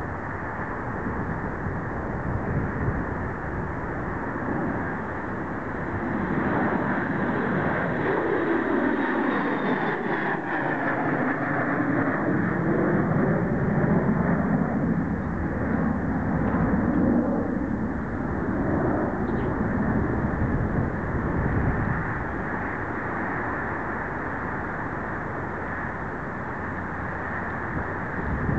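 Distant jet engine noise from a Boeing 737 on final approach, a steady whooshing rumble that swells in the middle with a slow sweep down and back up in pitch, mixed with wind buffeting the microphone.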